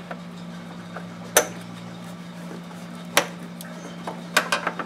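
Sharp metallic clinks of a wrench against the line fitting on top of a clutch master cylinder: single clinks about a second and a half in and about three seconds in, then a quick run of clinks near the end.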